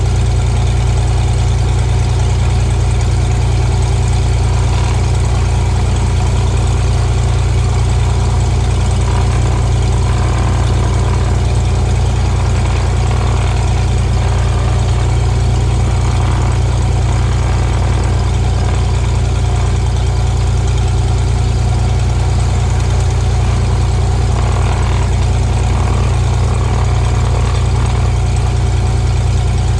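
Piston engine and propeller of a single-engine Cessna retractable-gear airplane running at a steady setting: an unchanging low drone.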